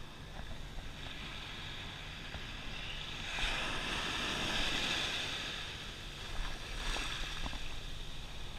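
Small surf washing up on a sand beach: a wave swells in about three seconds in and fades away a couple of seconds later.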